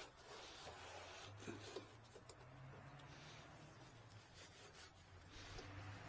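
Faint rubbing and scuffing sounds of hand work, over a low steady hum that sets in about a second in.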